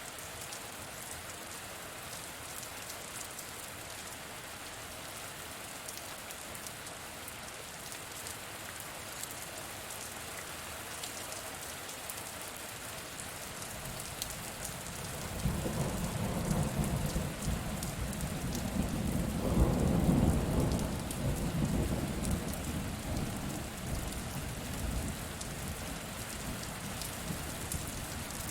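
Steady rain falling, with a roll of thunder that starts about halfway through, swells to a peak and slowly rumbles away.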